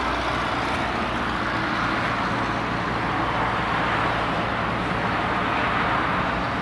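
Steady road traffic noise, an even continuous hiss without distinct events.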